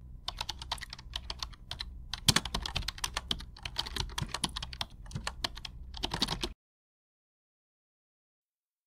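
Keyboard typing sound effect: fast, irregular clicks that stop abruptly about six and a half seconds in.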